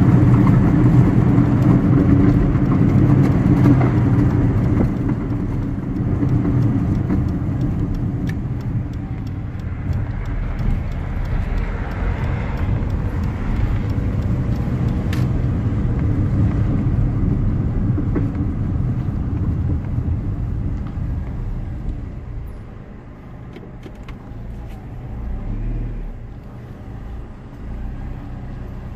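Car on the move: steady road and tyre noise with a low hum, easing off and growing quieter over the last third.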